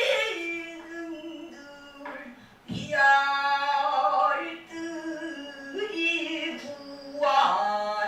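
A pansori singer sings long phrases with bending, wavering held notes. The phrases are separated by short pauses, and a sharp single stroke, typical of the buk drum accompaniment, falls a little under three seconds in, just as a loud new phrase begins.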